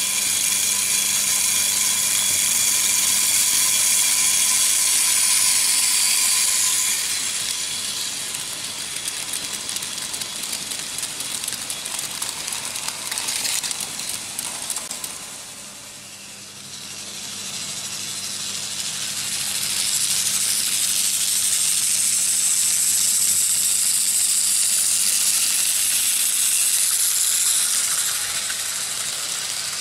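Vintage Märklin H0 model trains running on stamped-metal M-track, a continuous rattling clatter of wheels over the rails with a faint steady hum underneath. The clatter is loud at first, fades to its quietest about halfway through, then swells again as a train comes close.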